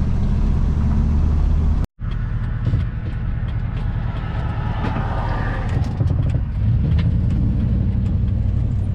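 Steady low engine and road noise inside a van's cabin while driving, with a few faint clicks midway. The sound cuts out completely for a moment about two seconds in.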